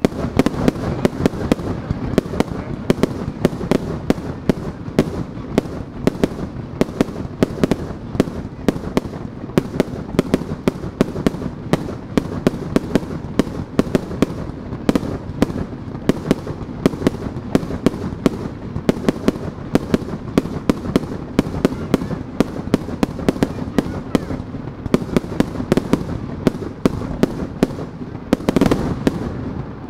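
Fireworks barrage: small shells launched and bursting in quick succession, making a continuous rattle of sharp bangs, several a second, over a steady crackling rumble. It thickens near the end, then stops abruptly.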